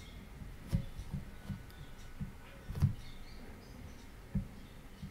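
Stylus tapping and dabbing on a tablet screen while painting, heard as scattered soft low thumps, about six of them, the loudest about three seconds in.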